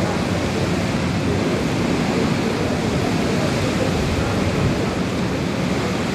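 Hurricane wind blowing hard, a steady, even rush of noise with no let-up.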